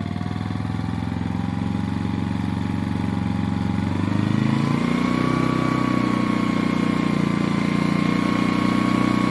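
Portable petrol generator built as an electric-vehicle range extender, running just after a remote start. About four seconds in, its engine speed steps up and then holds steady at a higher pitch, with a whine over the engine note.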